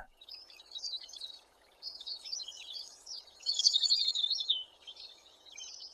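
Small birds chirping and twittering in a rapid, continuous chatter, loudest about halfway through.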